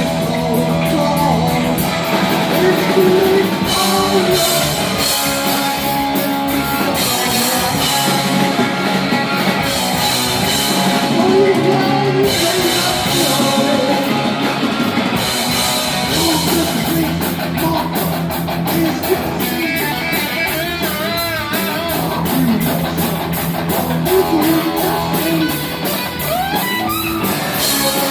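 Heavy metal band playing live, with electric guitars and a drum kit, in a section without vocals.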